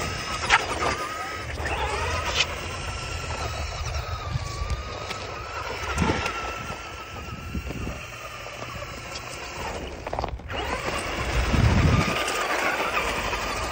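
RC off-road buggy's electric motor whining, its pitch wavering up and down with the throttle as it spins through snow. The sound drops out briefly about ten seconds in.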